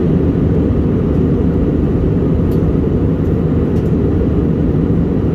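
Airbus A321 jet airliner cabin noise in cruise: a steady, low, even roar of engines and airflow heard from inside the cabin.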